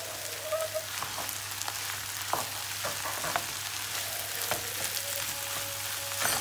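Shredded cabbage and onions sizzling in hot oil in a frying pan, stirred with a wooden spoon that scrapes and taps against the pan several times.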